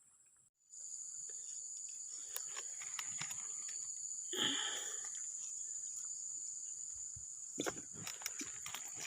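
A steady, high-pitched chorus of insects. There is a short louder sound about four seconds in, and a few knocks near the end.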